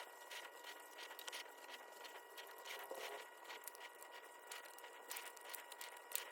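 Very faint, scattered small clicks and ticks of small mechanical parts being handled, as in refitting a belt inside a small dictaphone tape mechanism, over a low steady hiss.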